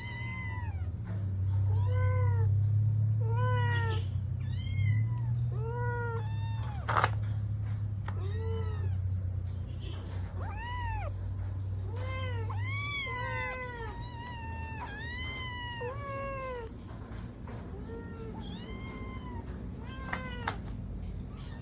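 A domestic cat meowing over and over, short rising-and-falling meows about once a second, the insistent calling of a cat that wants to be let out. A steady low hum sits underneath and fades about two-thirds of the way through, and there is one sharp click about a third of the way in.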